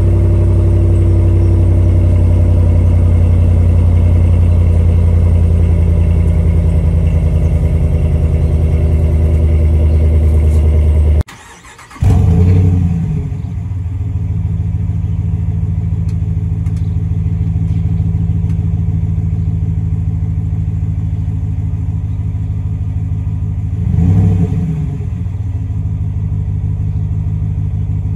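Exhaust of a 2019 Ram 1500's 5.7-litre Hemi V8 through a Flowmaster Super 10 muffler with the first resonator deleted, fast-idling steadily after a cold start. After a cut about 11 seconds in, the same truck with its resonators in place starts warm with a brief flare, settles to a quieter idle, and revs once briefly near the end.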